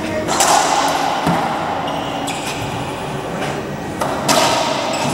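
Racquetball rally: a series of sharp hits of the ball off racquets and the court walls, roughly one a second, echoing in the enclosed court, the loudest near the start and about four seconds in.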